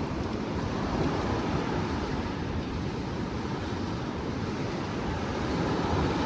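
Ocean surf washing steadily onto the beach, with wind blowing across the microphone.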